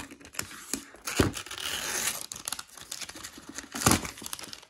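Wrapping rustling and tearing as it is pulled off a new Apple MacBook Pro power adapter lifted from its cardboard box tray, with two sharp knocks, one about a second in and one near the end.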